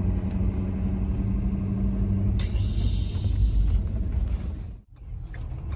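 Road and engine rumble inside a moving pickup truck's cab, with a steady hum through the first half. A hissing rush comes in about halfway. The sound drops out abruptly near the end and comes back quieter.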